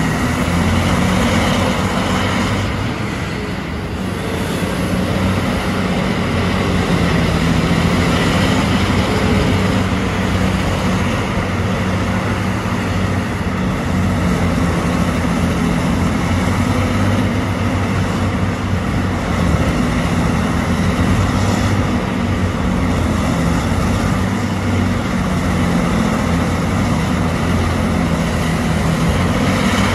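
Diesel engine of a Terex RH170 hydraulic mining shovel running steadily under load as the bucket digs into the earth face, dipping briefly a few seconds in.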